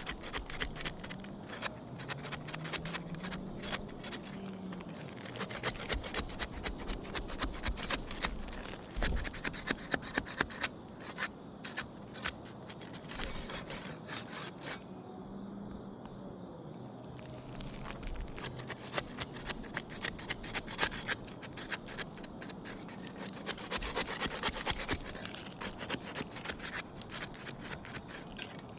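Putty knife scraping and rubbing against asphalt shingles to break their seal, an irregular run of scrapes and small clicks.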